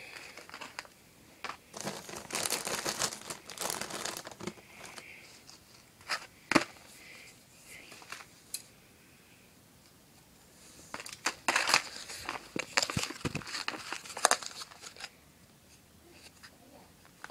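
Crinkling and rustling handling noise from modelling clay and a plastic mould being worked over a paper sheet. It comes in two spells, with a single sharp click about six and a half seconds in.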